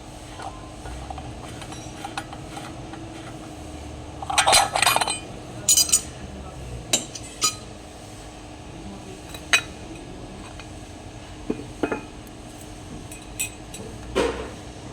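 Metal parts and tools clinking and knocking together while an automatic transmission's reverse clutch drum is worked on. There are scattered single knocks, with a rattling cluster of clinks about four to six seconds in, over a faint steady hum.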